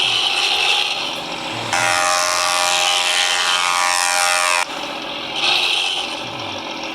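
Hino truck's diesel engine with a "ngorok" (snoring-style) exhaust, running loud under throttle. Its note comes in suddenly, falls steadily in pitch for about three seconds, then cuts off abruptly and carries on more quietly.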